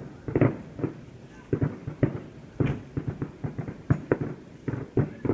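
Fireworks going off in quick, irregular succession: a string of bangs and pops, several a second.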